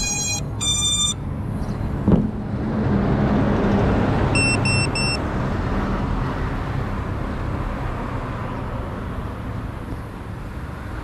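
Electronic beeps, typical of an FPV quad's motors and speed controllers beeping on power-up: two beeps right at the start, then three short identical beeps about four and a half seconds in. Underneath is steady road-traffic noise that swells between about two and six seconds in and then eases off.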